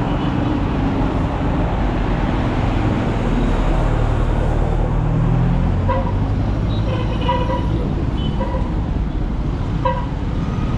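Street traffic of motorcycles and a bus passing close, engines running, one engine note rising around four seconds in. Several short horn beeps come in the second half.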